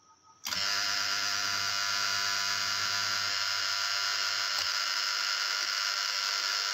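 Contactor of a Bentex SK oil-immersed star-delta starter energised from a 220 V AC supply and holding in: a loud, steady electrical buzz starts suddenly about half a second in. A faint click comes about four and a half seconds in, after which the buzz changes slightly.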